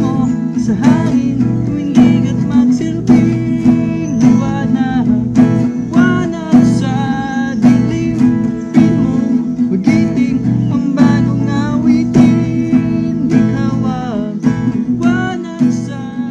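Acoustic guitar being played, a run of picked notes over ringing chords, fading out near the end.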